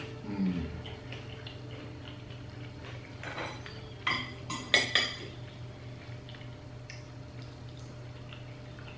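Knife and fork scraping and clinking against a plate while cutting through beans on toast. A quick cluster of sharp clinks comes about four to five seconds in.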